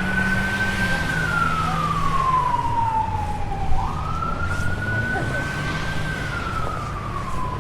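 Emergency vehicle siren wailing: a high tone that holds, sinks slowly, jumps back up about four seconds in and sinks again. Low engine hum of street traffic runs underneath.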